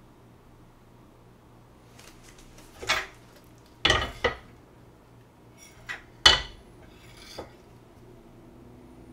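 A frying pan shifted on a gas stove's metal grate, knocking and scraping with several sharp clatters; the loudest come about four and six seconds in.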